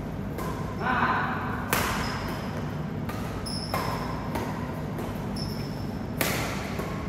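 Badminton rally: rackets striking a shuttlecock back and forth, a string of sharp hits about a second apart, several followed by a brief high ring.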